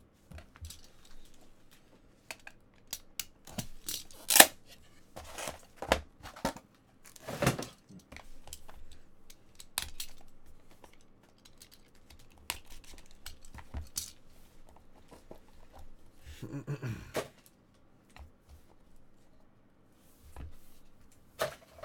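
Cardboard trading-card box and its packaging being opened and handled by hand: irregular tearing, rustling and clicking of card stock and wrapping, with the sharpest tears about four and a half and seven and a half seconds in.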